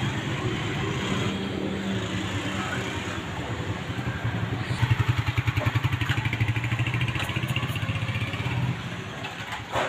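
Motorcycle engine running with a steady low putter. It grows louder and more strongly pulsing in the middle, then drops off about nine seconds in.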